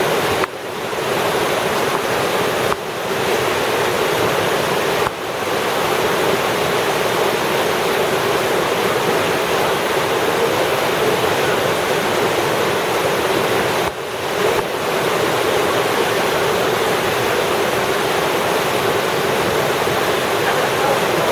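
Loud, steady rush of a fast, swollen river. The roar dips briefly a few times, about half a second in, near 3 and 5 seconds, and again about two-thirds of the way through.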